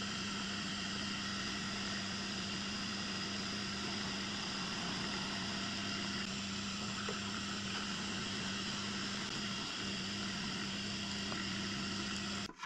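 Vertical milling machine running steadily, its end mill cutting out an opening in a metal locomotive tender frame plate: a constant motor hum under a steady whine of the spindle and cutter.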